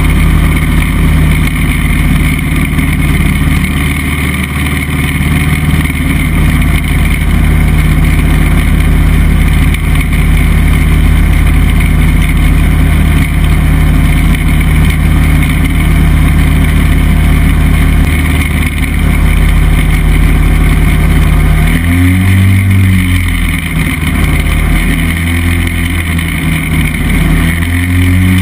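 Chinook Plus 2 ultralight's engine and propeller running loudly at a steady speed. Near the end the engine speed dips and comes back up twice.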